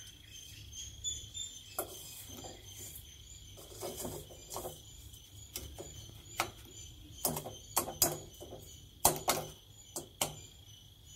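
A metal spoon clinking and scraping against a steel vessel in irregular sharp clicks, more of them in the second half, as a granular sugar and tea-powder mix is spooned in.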